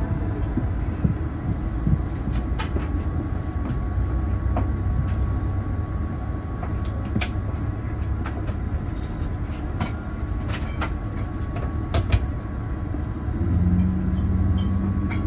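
Cabin noise of an Airbus A350-900 taxiing, heard from inside at a window seat: a steady low rumble from the Rolls-Royce Trent XWB engines at taxi power and the rolling gear, with scattered light clicks and knocks. A steady low hum joins near the end.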